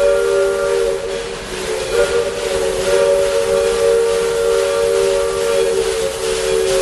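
Narrow-gauge steam locomotive's chime whistle blowing long, three-tone blasts over a hiss of steam, easing briefly about a second and a half in before sounding again.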